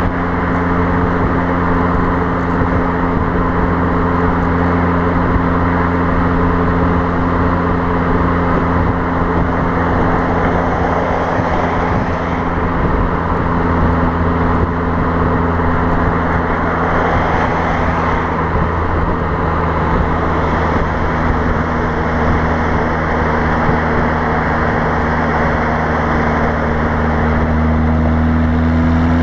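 Fiat Abarth 595's 1.4-litre turbocharged four-cylinder exhaust, heard from beside the tailpipe, droning steadily at motorway cruise, with the revs starting to rise near the end. Wind noise on the microphone and road noise are mixed in.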